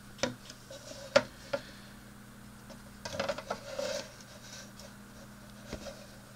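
Handling noise from a plastic model kit: a few sharp clicks and a brief rattling clatter about three seconds in, over a faint steady low hum.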